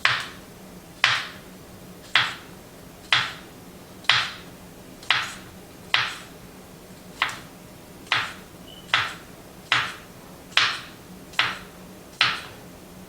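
Kitchen knife slicing through zucchini and striking the cutting board, about fourteen even strokes roughly a second apart, each a short crisp cut that fades quickly.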